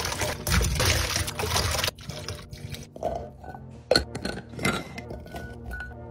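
Blueberries tipped into a glass bowl of water, a splashing pour lasting about two seconds. Then light clicks and knocks of glass food-storage jars being handled and a lid pressed on, the sharpest knock about four seconds in, over soft background music.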